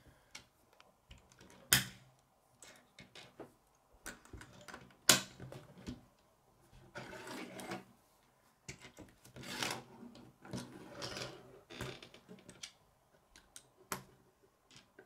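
K'nex plastic rods and connectors clicking and clacking as they are handled, snapped together and set down on a wooden table: irregular sharp clicks with a few louder clacks, the loudest about five seconds in, and stretches of rattling as loose pieces are rummaged through.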